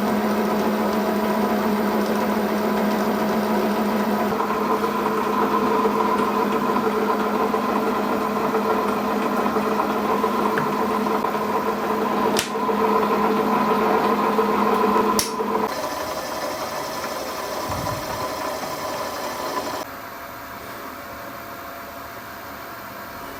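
Myford Super 7 lathe running under power, its motor and gear train giving a steady mechanical hum and whine. Two sharp clicks come about twelve and fifteen seconds in, and after them the running note changes. It drops to a quieter hum near the end.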